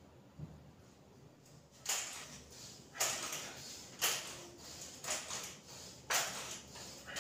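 Sharp, hissing exhales from a man doing dumbbell curls, one about every second, starting about two seconds in.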